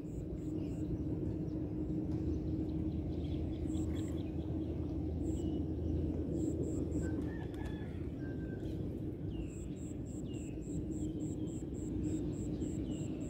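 Birds calling outdoors over a steady low rumble. In the second half a fast, even run of high chirps, about four a second, joins short falling calls.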